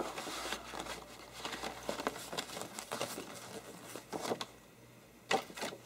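Sheets of posterboard rustling and sliding against each other as hands shift them and smooth them flat, with irregular soft scrapes and a few sharper taps, the strongest near the end.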